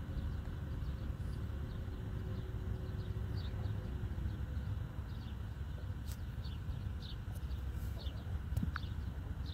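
Outdoor ambience: a steady low rumble, with small birds chirping in short, quick calls, more often from about three seconds in.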